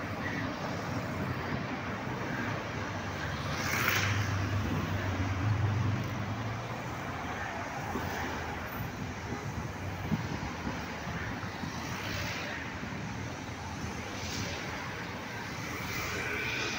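Cars driving past one after another on a city road: steady engine and tyre noise, with one car's engine running louder and lower about four to six seconds in, and several more passing near the end.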